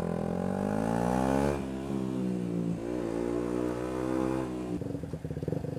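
KTM Duke 125's single-cylinder four-stroke engine pulling up through the revs, dropping in pitch at a gear change about a second and a half in, then running fairly steadily before the throttle comes off near the end.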